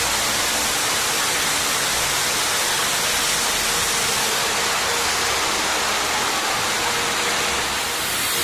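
Fast river water rushing steadily over and between boulders in a rocky white-water rapid.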